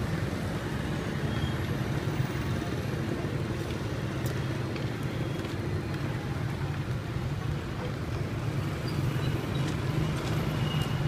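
Steady street ambience: a low, continuous rumble of road traffic and engines, with a few faint clicks.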